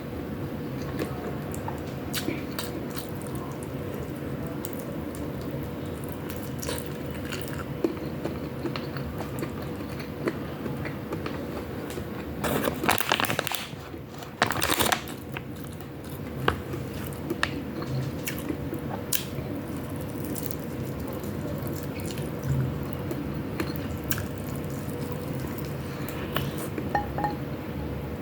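A person eating chicken wings and ground pork with rice close to the microphone: chewing, wet mouth clicks and occasional crunches. Two louder noisy stretches come a little before halfway. A steady low hum with a faint held tone runs underneath.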